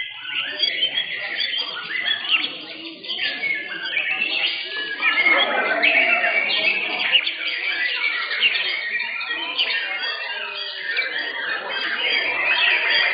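Several caged white-rumped shamas (murai batu) singing at once, a dense, continuous mix of overlapping chirps, whistles and trills, with crowd chatter underneath.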